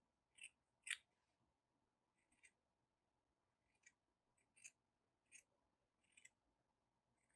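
Scissors snipping through chita fabric glued onto felt: about seven short, quiet snips roughly a second apart, the second one the loudest.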